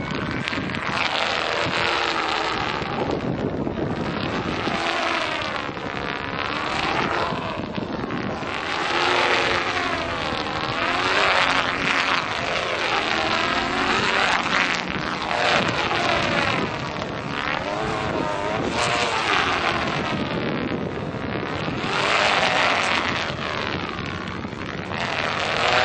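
Continuous rushing whoosh of stunt kites cutting through strong wind, swelling and fading every couple of seconds as they sweep across the sky, with wind buffeting the microphone.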